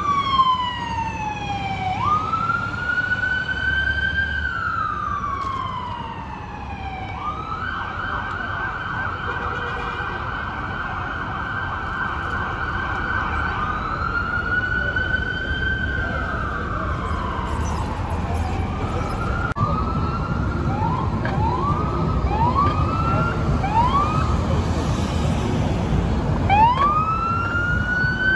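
Electronic emergency-vehicle siren switching between its tones: slow rising and falling wails, a fast warbling yelp for about six seconds, then a run of short rising whoops about once a second, over a steady rumble of city traffic.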